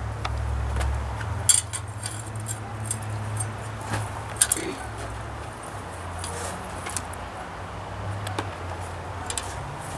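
Light metallic clinks and taps of a steel square and small steel plate being handled and set on a wooden stump, the sharpest about a second and a half in and again near four and a half seconds, over a steady low hum.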